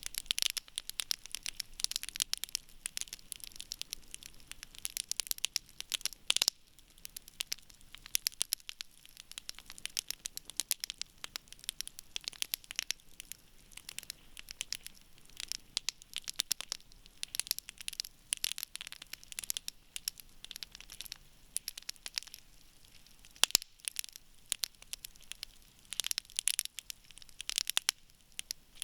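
Wood campfire burning and crackling: a steady stream of small sharp snaps, with two louder pops, one about a quarter of the way in and one about four-fifths of the way in.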